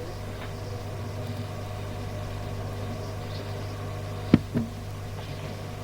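Radio receiver on an open channel between transmissions: steady hiss with a low hum. A sharp click comes about four seconds in, followed by a smaller one.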